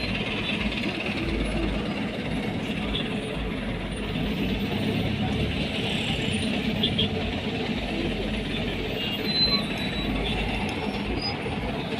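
Steady traffic noise from a jam of idling cars and motorcycles at the roadside, with a few faint clicks about seven seconds in.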